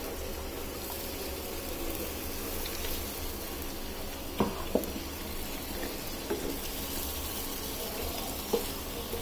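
Water pouring from a steel vessel into a frying pan of raw banana slices and masala. A few light knocks follow as a wooden spatula stirs the pan, about halfway through and again near the end.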